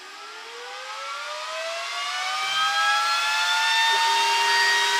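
Glowforge Pro laser cutter's built-in exhaust fan spinning up after being switched on: a whine rising steadily in pitch and loudness over rushing air, with a second steady tone joining about four seconds in.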